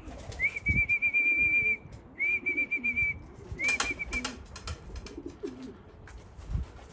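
Three drawn-out, slightly warbling whistles in a row, the last one short: a fancier's whistled call to bring racing pigeons down into the loft trap. Pigeons coo softly underneath.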